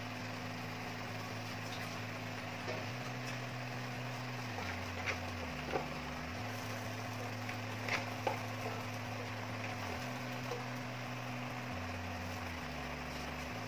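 Soft background music with a slow bass line stepping from note to note, over a steady hiss. A few light knocks as eggplants and bitter melon pieces are set into a stainless steel pot, a couple of them close together a little after the middle.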